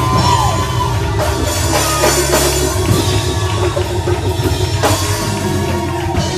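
Live church praise band playing up-tempo music, with a drum kit, heavy bass and held keyboard tones.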